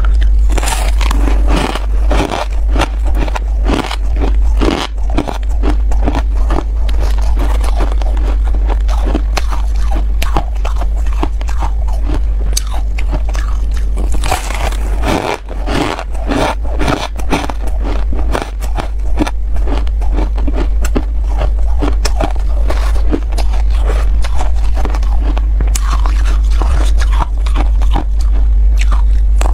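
Freezer frost being bitten and chewed, a dense, continuous crunching, with a steady low hum underneath.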